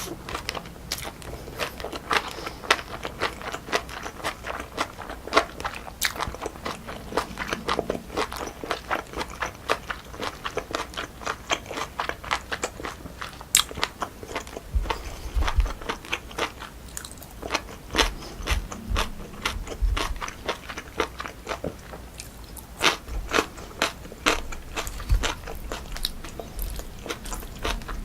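Close-miked eating of cold pork feet with jellyfish salad: steady chewing with many small irregular crunches and wet clicks, and a few low soft thumps after the halfway point.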